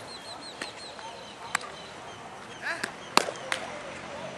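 Four sharp cracks or knocks at uneven intervals, the loudest a little past the middle, over a faint, rapid, high chirping.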